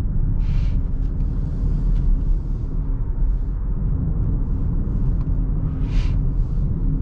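Steady low road and engine rumble heard inside the cabin of a Genesis SUV on the move, with a faint steady hum over it. Two brief faint hisses come about half a second in and again near the end.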